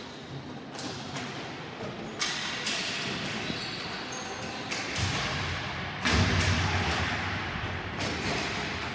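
Ball hockey play: irregular sharp clacks of sticks and ball, with heavier thuds. The loudest thud comes about six seconds in.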